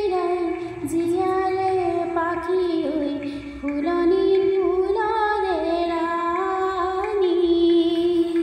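Music: a woman singing a slow Assamese song melody in long held notes that glide from one pitch to the next.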